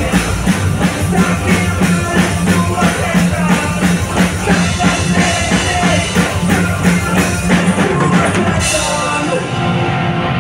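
Rock band playing live: drum kit keeping a steady beat under electric guitars, bass and singing. Near the end the beat and the low end drop out, leaving a bright high wash.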